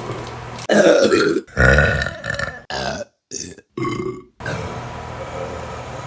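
A woman burping several times in quick succession, short separate burps cut one after another, the two loudest in the first half.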